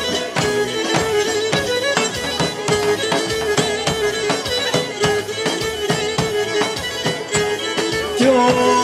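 Pontic lyra (kemenche), a three-string bowed folk fiddle, playing an instrumental dance tune over a steady beat, with no singing.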